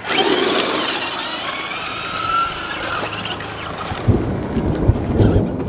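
Electric motor of an RC car whining and rising in pitch as it speeds up for about three seconds, then fading. From about four seconds in, low gusts of wind rumble on the microphone.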